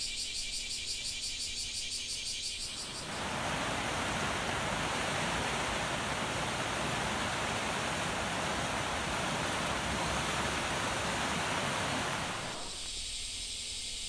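A high, pulsing insect buzz gives way about three seconds in to a loud, even rushing of heavy rain and floodwater. The buzz returns near the end.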